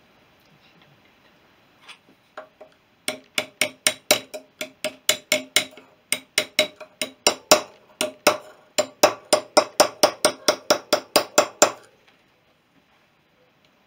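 Hammer striking a pin punch to drive the steel felt-seal retaining washer into a BSA B31 front wheel hub, over its new sealed bearing. A few light taps come first, then a long run of sharp, ringing metal blows, about three a second, which stops near the end.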